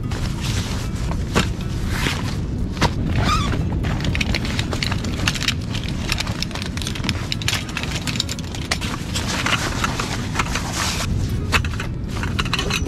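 A folding camp cot being unpacked: nylon carry bag and cot fabric rustling, with a few sharp knocks from the cot's frame parts, over a steady low rumble.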